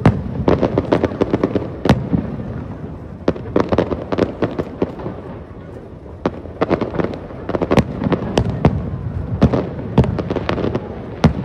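Aerial fireworks bursting: single sharp booms mixed with dense clusters of crackling reports, over a continuous rumble.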